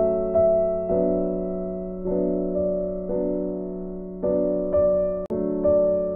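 Background piano music: slow, gentle chords, a new one struck about once a second and left to fade, with a brief drop-out about five seconds in.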